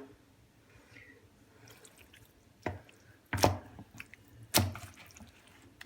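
Kitchen handling noises while chicken thighs are seasoned: three short, sharp knocks about a second apart, the middle one loudest, with faint soft handling between.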